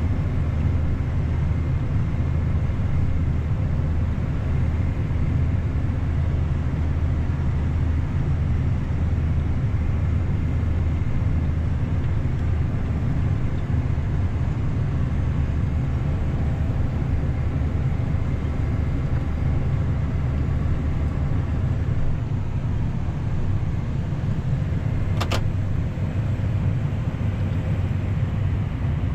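John Deere S790 combine running steadily while harvesting wheat, a continuous low engine drone. A single sharp click is heard about 25 seconds in.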